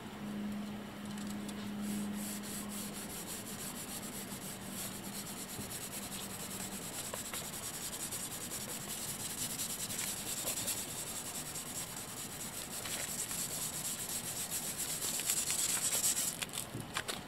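Hand sanding with a sanding block on the motorhome's side stripe: repeated rubbing strokes of abrasive paper over the painted body panel during finish sanding. The strokes grow louder near the end.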